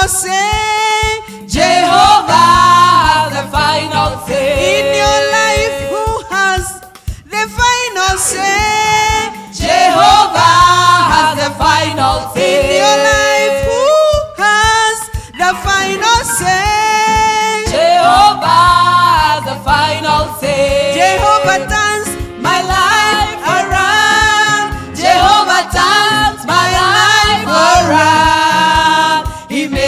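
Gospel praise-and-worship song: voices singing melodic phrases over instrumental backing.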